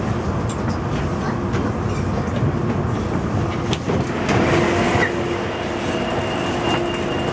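Inside an MTR A-Train standing at the platform: the carriage's steady rumble, then about four seconds in a clunk as the passenger doors slide open, with a rush of noise and a steady tone lasting about three seconds.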